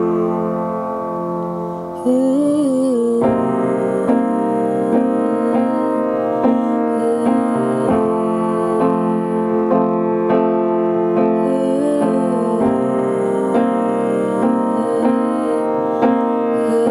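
Upright piano playing: a held chord fades for about two seconds, then steady repeated chords follow in an instrumental passage of a song.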